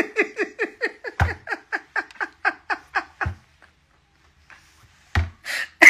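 A man laughing: a quick run of short ha-ha pulses, about four a second, that trails off after about three seconds, then a new burst of laughter near the end.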